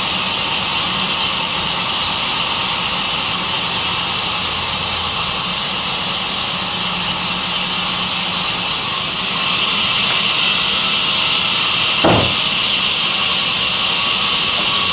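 Sawmill saw machine running with a loud, steady hiss over a low hum; it gets a little louder about nine and a half seconds in, and a single short knock sounds about twelve seconds in.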